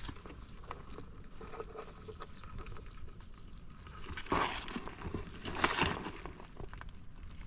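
Wet mud and water being disturbed: two short squelching splashes, about four and a half and six seconds in, over faint scattered clicks.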